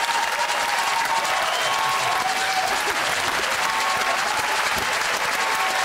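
Studio audience applauding steadily, with a faint tune of short held notes underneath.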